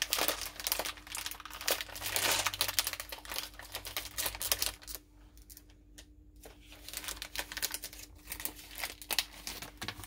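A bag of SweeTarts Chewy Fusions candy being torn open at its tear notch and crinkled in the hands: a dense crackling that eases off for a moment about halfway through, then picks up again.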